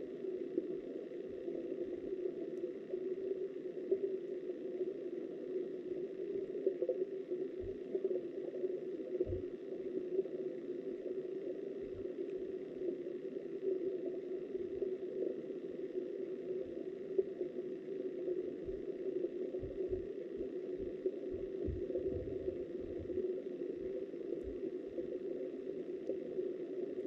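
Muffled, steady rush of flowing river water heard through an underwater camera housing, with scattered low thuds.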